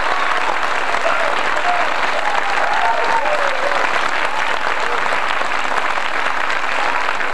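Concert audience applauding steadily, with a few cheers and shouts rising out of the clapping now and then.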